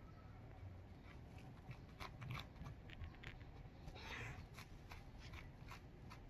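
Dog tearing and chewing grass: faint, irregular crunching and snipping clicks, with a longer rustle about four seconds in.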